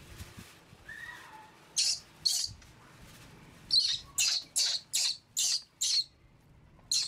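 A baby macaque screeching in short shrill cries, first twice and then in a quick run of about six.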